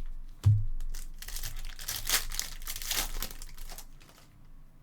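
Foil trading-card pack wrapper crinkling and being torn open by hand for about three seconds, after a soft thump about half a second in.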